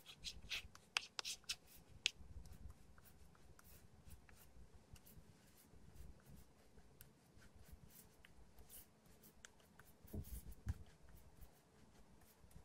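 White chalk writing on a blackboard: faint scratching strokes and sharp taps as characters are written, busiest and loudest in the first two seconds and again about ten seconds in.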